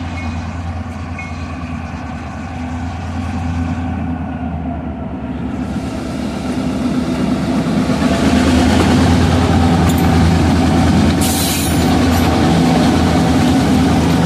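Wisconsin & Southern diesel-electric freight locomotive passing at close range, its engine drone steady and low and growing louder as it comes alongside about eight seconds in. A few short high-pitched noises come from the train near the end.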